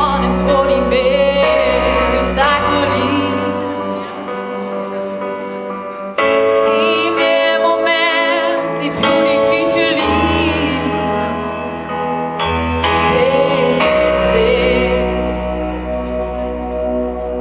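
Music: a woman singing a slow song with vibrato over a sustained accompaniment, with an abrupt change about six seconds in.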